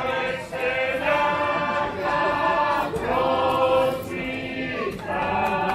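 A mixed group of folk dancers singing unaccompanied in chorus, in short phrases about a second long with brief breaths between them.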